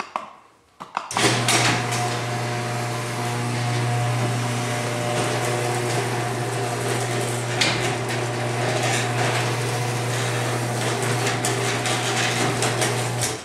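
Sears Craftsman 1/2 HP chain-drive garage door opener running a full cycle, pretty loud: a couple of clicks, then about a second in the motor starts with a steady hum, the chain and door rattling along the rail, until it stops abruptly near the end.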